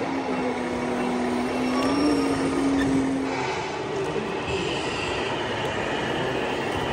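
A scale radio-controlled truck's electronic sound module playing a diesel engine note through its small speaker. The note steps up and down in pitch and stops about three and a half seconds in, leaving fainter mixed noise.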